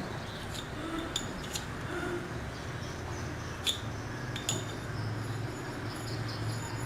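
About five separate sharp clicks and knocks, the loudest near the middle, over a steady low hum.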